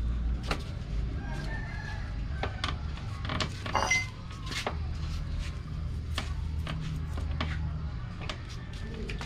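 A rooster crows briefly about three and a half seconds in, with chickens clucking, over scattered sharp clicks and knocks and a steady low hum.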